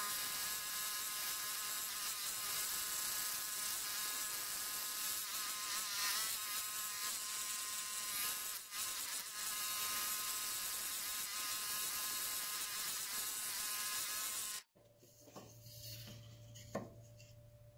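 Scroll saw running with its blade cutting through a wooden puzzle blank, a steady high whine. It stops abruptly about fifteen seconds in, leaving only a faint low hum.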